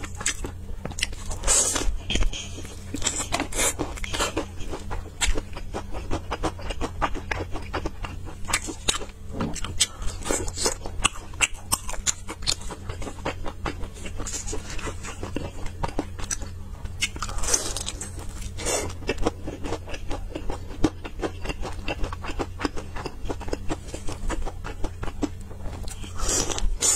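Close-miked crunching and chewing of crispy fried chicken: a dense run of crackly bites and chews, with several louder crunches along the way.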